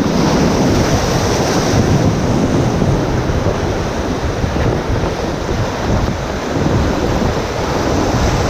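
Whitewater rapids rushing around a raft: a loud, steady wash of churning river water, with wind buffeting the microphone.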